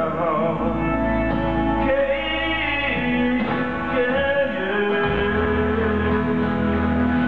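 A live rock band playing a song: electric and acoustic guitars, bass, drums and keyboard together.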